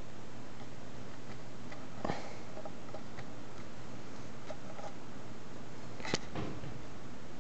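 A few soft taps and rustles right at the microphone over a steady hiss, with a sharp tap about six seconds in as a kitten moves against the camera.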